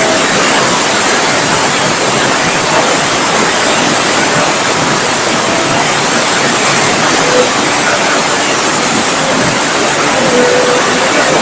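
Heavy rain pouring down in strong wind: a loud, steady rush of water.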